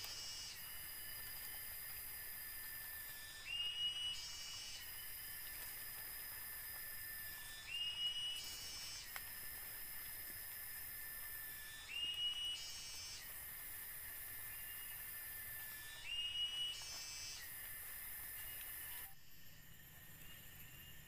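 Cicada calling: a high hissing buzz that breaks off about every four seconds into a short rising whistle, five times over. It stops abruptly near the end.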